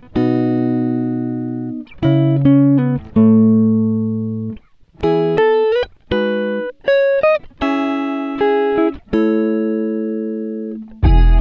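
Background music of plucked-string notes and chords, each struck and left to fade, with a few notes bending up in pitch. A fuller passage with deep bass comes in near the end.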